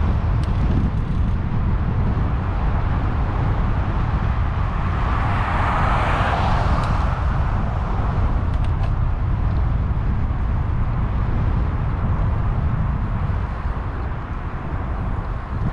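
Wind rushing over a GoPro action camera on a moving road bike, with a vehicle passing in a swell of noise about six seconds in.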